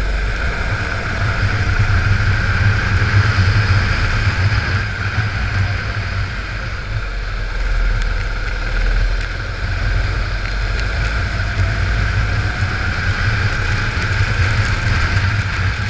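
Kart engine running at racing speed on a wet track, heard close up from the kart itself, with wind buffeting the microphone.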